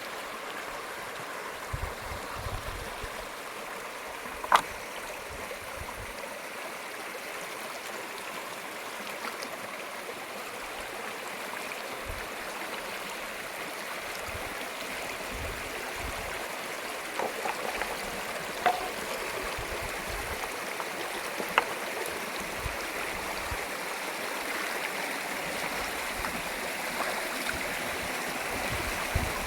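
Stream water running steadily over rocks. A few sharp clicks stand out above it: one loud click a few seconds in, and two more past the middle.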